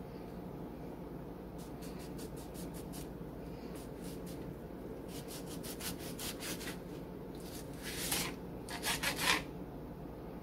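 Kitchen knife cutting through lemon slices on a plastic cutting board: clusters of short scraping strokes and taps, the loudest near the end, over a steady low background hum.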